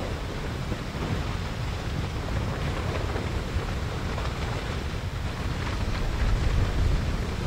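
Basaltic lava river flowing, a steady rushing noise with a few faint crackles, under a low rumble of wind on the microphone.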